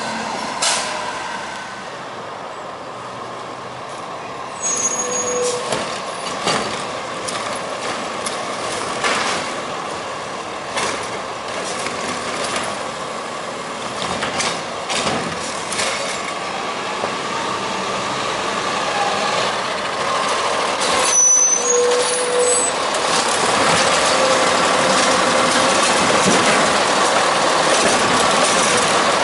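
Peterbilt 520 garbage truck with a Heil STARR side-loader body, its engine running as it drives and pulls up to the curb, with a hiss of air brakes. The engine sound grows louder and steadier over the last third, as the automated arm begins working.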